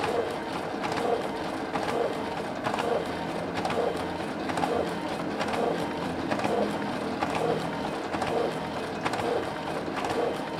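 Canon iR6000 photocopier running a continuous copy job, feeding and ejecting sheets into the exit tray without jamming. A regular click-and-whir repeats about every two-thirds of a second over the machine's steady hum.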